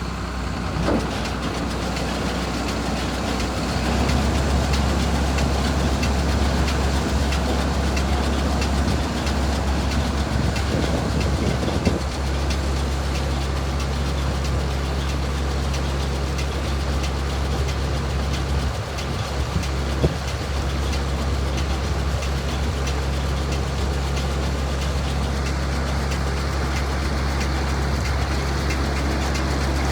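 Tractor engine running steadily, its level stepping up about four seconds in, with a couple of sharp knocks near the middle.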